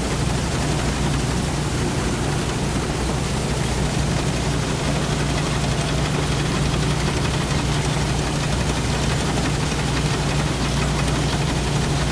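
Engine of a small ride-on rice harvester running steadily as the machine cuts standing rice, a constant low hum under an even mechanical noise.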